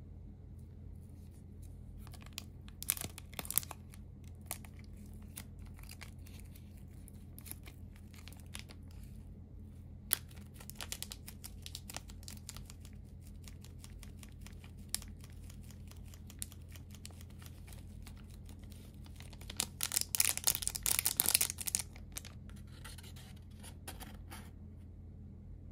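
Food packaging being torn open and crinkled in short crackly bursts, loudest about twenty seconds in, with light handling ticks in between, over a faint steady low hum.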